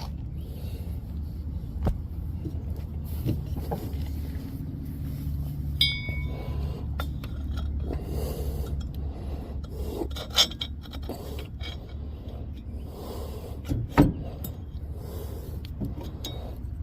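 Metal parts scraping and clinking as a bolt and pipe spacer are fitted to a riding mower's electric PTO clutch, with several sharp knocks and one short ringing metallic clink about six seconds in, over a steady low hum.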